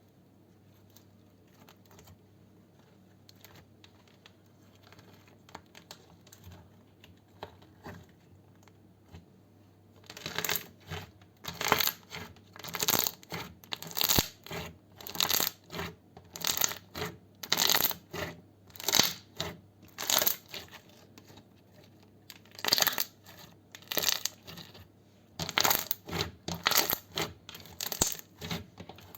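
Slime being squeezed and pressed, making crackly, popping squelches. After about ten seconds of faint rustling they start and repeat steadily, about one or two a second, with a couple of short pauses.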